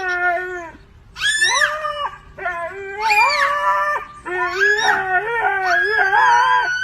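Dog howling: a series of long howls that rise and fall in pitch, with short breaks between them.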